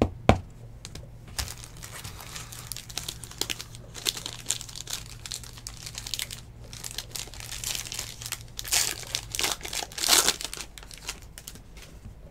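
Foil trading-card pack wrapper torn open and crinkled by hand. There are a few sharp clicks right at the start, and louder crinkles about nine and ten seconds in.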